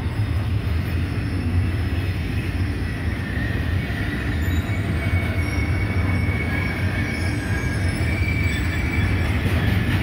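Rail train's flatcars, loaded with long steel rails, rolling past: a steady heavy rumble of wheels on track, with a thin high wheel squeal coming and going through the middle.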